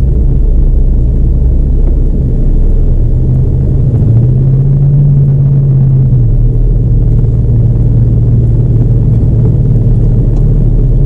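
Four-wheel-drive vehicle's engine running with a steady low drone while it drives over desert sand dunes, rising in pitch for about two seconds around four seconds in as the engine revs up, then settling back.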